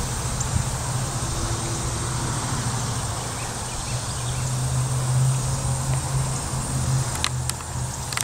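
Open-air rural ambience: a steady low rumble that swells briefly in the middle, under a thin, constant high drone of insects.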